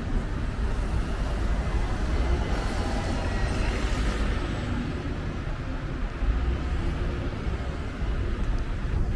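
Street traffic on a wet road: a city bus passes close by, its tyre hiss swelling and fading around three to four seconds in, over a steady low rumble.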